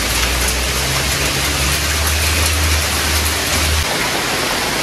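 Heavy rain mixed with hail, a dense steady hiss with small ticks of hailstones striking. A low rumble under it cuts off suddenly about four seconds in.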